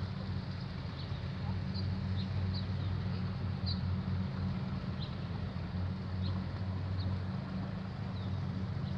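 Steady low rumble, with short faint high chirps, likely birds, scattered through it.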